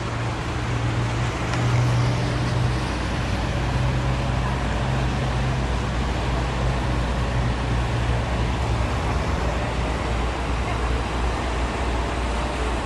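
Steady low drone of river boat engines, with an even wash of wind and water noise over it.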